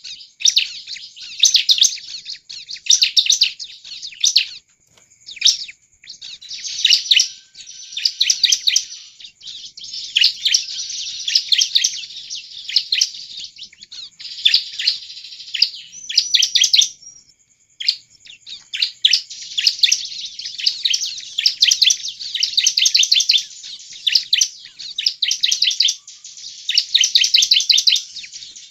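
Bar-winged prinia (ciblek) singing loudly in high, rapid phrases of quickly repeated sharp notes, one phrase after another with short breaks between them.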